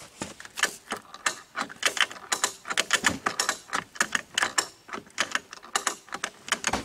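Ratchet strap being cranked tight: a rapid, uneven run of sharp metal clicks as the strap takes up tension to pull a frozen-in mower deck loose.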